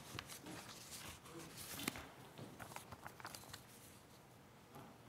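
Faint rustling with scattered light clicks and knocks, the loudest click a little under two seconds in.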